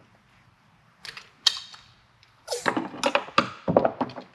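Hand-held hydraulic crimper being worked to crimp a heavy uninsulated lug onto a battery cable: two sharp clicks about a second in, then a quick run of clicking and clacking in the second half.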